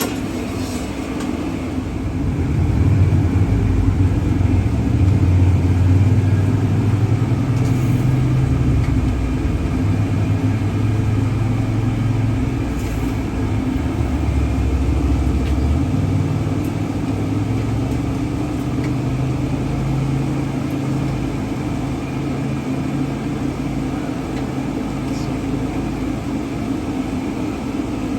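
A car driving, with a steady low engine and road noise whose pitch shifts as it goes. It grows louder about three seconds in.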